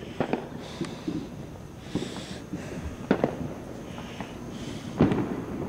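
Distant fireworks going off: several separate sharp bangs and pops, the loudest about five seconds in.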